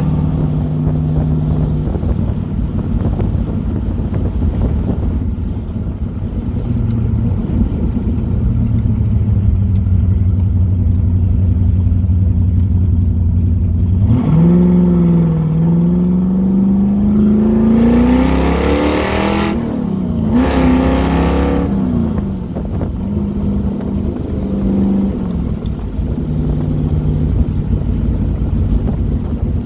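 1969 Corvette's V8 running while driving. About halfway through the engine note climbs twice in a row, each time falling away, as the car accelerates through the gears, then it settles back to a steady run.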